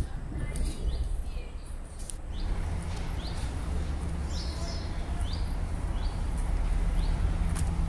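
Small songbird repeating short rising chirps about once a second over a steady low town hum.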